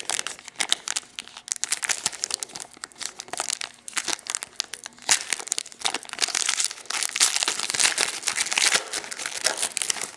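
Foil wrapper of a trading-card pack being torn open and crinkled, a dense run of crackles that stops near the end.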